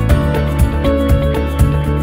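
Background music with a steady beat of about two a second under sustained pitched notes.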